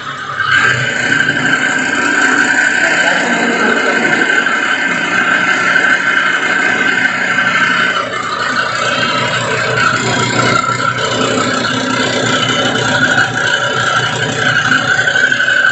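Whirling-of-shaft lab apparatus running at high speed: the drive motor and thin steel shaft spin with a steady high whine, which grows louder about half a second in. The shaft is whirling in its second mode, bowed between two nodes, past its second critical speed.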